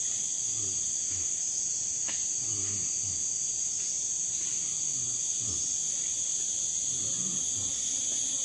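Steady high-pitched chorus of rainforest insects droning without a break. Faint low falling sounds come about once a second beneath it, and there is a single click about two seconds in.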